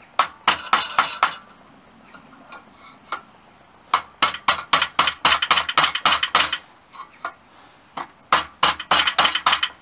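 Hammer blows on a long brass-rod drift, knocking a steering-head bearing race out of a Honda XL250S frame's headstock. The blows are sharp, ringing metallic strikes that come in three quick runs, with a few single strikes between them.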